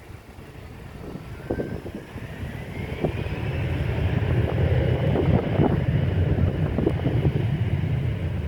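Airbus A380's Rolls-Royce Trent 900 jet engines, a low rumble growing steadily louder over the first few seconds and then holding, with a faint whine rising in pitch early on.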